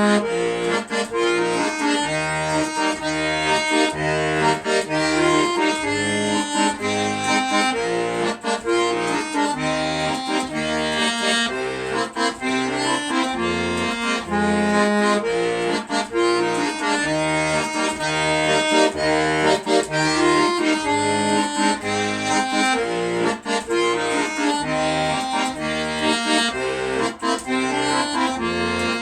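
Accordion playing a lively tune, the melody running over a steady pulsing bass.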